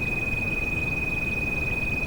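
A steady, high-pitched pure tone held without a break over continuous rain noise: a tinnitus-masking tone mixed with rain.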